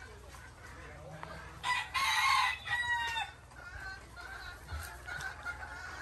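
A gamecock crows once, about two seconds in: a hoarse call lasting about a second and a half that falls in pitch at the end. Other chickens cluck faintly around it.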